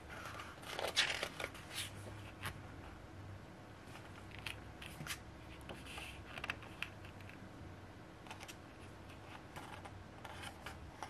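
Pages of an album photobook being turned and handled by hand: a series of short paper rustles and flaps, the loudest cluster about a second in.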